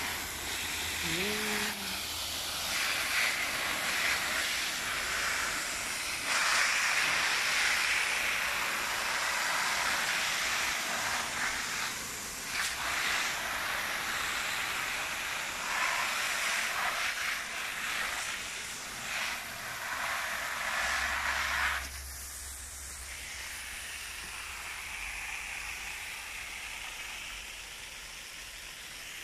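Garden hose spray nozzle hissing as water sprays onto plant leaves and potting soil, swelling and dipping in uneven stretches. About three quarters of the way through it drops to a fainter, steady hiss.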